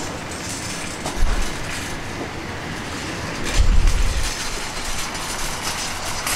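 Escalator machinery running with a steady rumble and clatter from the moving steps, with low thuds about a second in and again about three and a half seconds in.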